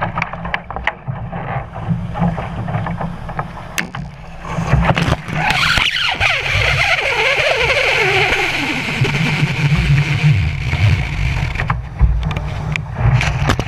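Wind buffeting the camera microphone aboard a small sailing dinghy under way, with water rushing along the hull. The rushing grows stronger about four seconds in and eases near the end, and a tone slides down in pitch in the middle.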